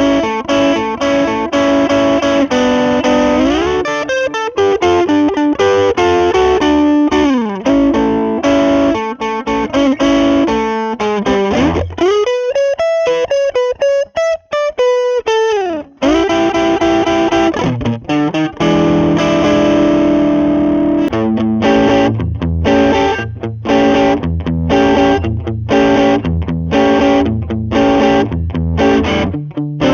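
Electric guitar (Squier Vintage Modified Jazzmaster) played through a Lovepedal Blackface Deluxe overdrive pedal with mild overdrive, strumming chords, and about halfway a held note glides up in pitch and back down. About two-thirds in, the pedal's gain goes up to 3 o'clock and the playing turns to short, choppy chords with a more distorted tone.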